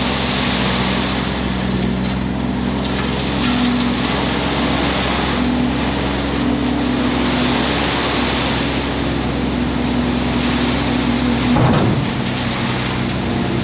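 Peterbilt 379 dump truck's diesel engine running steadily while base rock pours and rattles out of the tailgate in a continuous rush. About twelve seconds in there is a brief louder surge and the engine note shifts.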